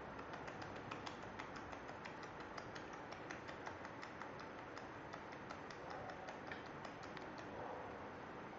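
Beagle puppies' claws clicking on a tile floor in quick, irregular light taps as they scramble and play, thinning out near the end.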